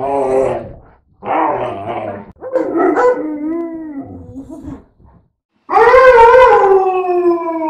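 Two Labrador-mix dogs, one of them part husky, 'talking': a run of short pitched yowls back and forth, then about six seconds in one long, loud howl that slides slowly down in pitch.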